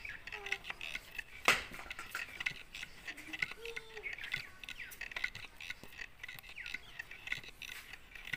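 Small birds chirping repeatedly in the background, with one sharp knock about one and a half seconds in.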